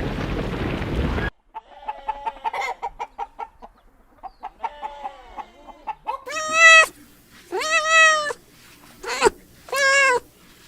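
A cat meowing loudly four times in the second half, each meow rising and falling in pitch. Before that come soft, short chirping calls.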